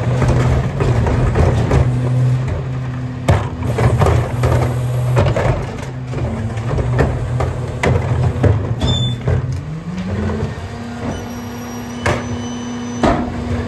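Battle Motors McNeilus rear-loader garbage truck running with a steady low hum while blue recycling carts are tipped into its hopper, with repeated clatters and knocks of the plastic carts and falling recyclables. About ten seconds in, the truck's pitch rises and then holds higher.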